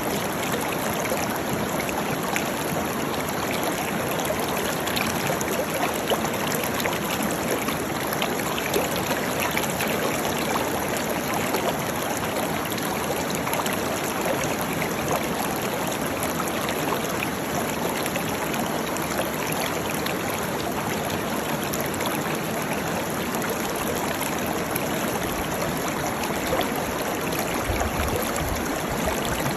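Waterfall: water rushing and splashing in a steady, unbroken wash. A brief low rumble comes in near the end.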